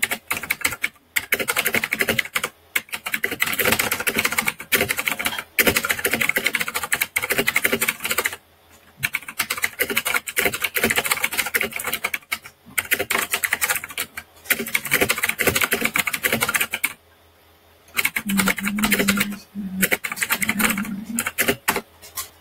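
Fast touch-typing on a computer keyboard, a rapid stream of key clicks at roughly 85–89 words per minute. The stream breaks off in several brief pauses and one longer pause about three-quarters of the way through.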